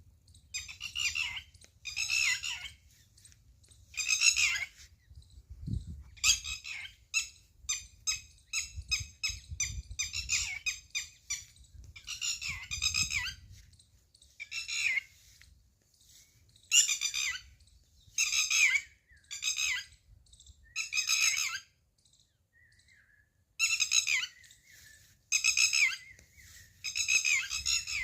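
Bird calls repeated in short bursts of half a second to a second each, with short gaps between them and a pause of a couple of seconds about three quarters of the way through.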